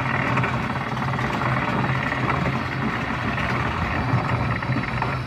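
Amusement park ride machinery running with a steady low drone under a general wash of noise.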